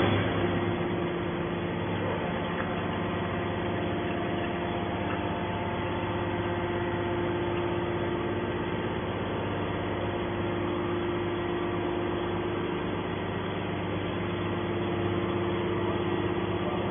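Hydraulic pump and motor of a TCM scrap-metal baler running with a steady hum under load as the ram pushes a compressed scrap-steel bale out of the chamber.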